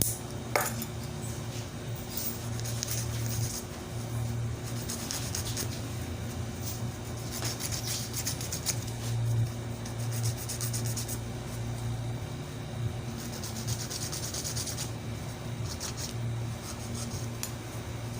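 A nail being filed by hand: runs of quick, scratchy rasping strokes with short pauses, over a steady low hum.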